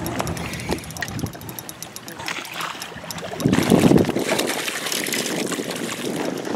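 Lake water lapping and wind on the microphone, with a louder splash about three and a half seconds in as a hooked smallmouth bass thrashes at the surface.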